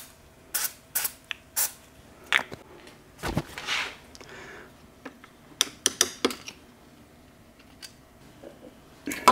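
Aerosol can of penetrating oil sprayed in a few short bursts onto a rusted speedometer gear in a transmission tailhousing, then a thump and scattered metal clicks and clinks of tools being handled.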